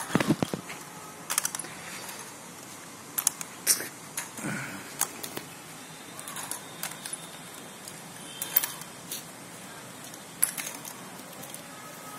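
Aluminium walking frame clinking and rattling each time it is lifted and set down on a dirt path: irregular sharp clicks about every one to two seconds, with the loudest cluster near the start.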